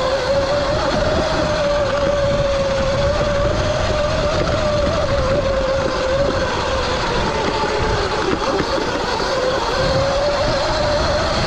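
Sur-Ron X electric dirt bike's motor and drivetrain whining steadily while riding along a dirt single track, the pitch wavering slightly with the throttle. A rough low rumble runs underneath.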